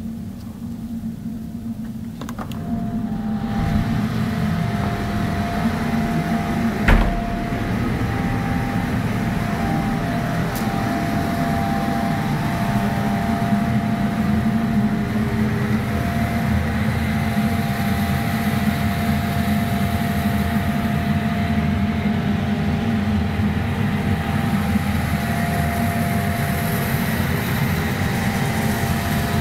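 Portable gas-fired hot-air heater (heater cannon) running steadily: a fan-and-burner sound with a faint steady whine in it. One sharp click about seven seconds in.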